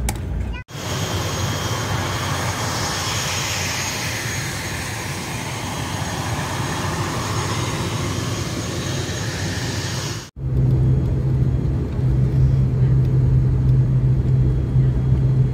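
Turboprop aircraft engine noise from an ATR 72-600. First, outside beside the parked plane, comes a steady high whine over a rushing sound. After an abrupt cut about ten seconds in comes a louder, steady low propeller drone heard inside the cabin as the plane runs along the runway.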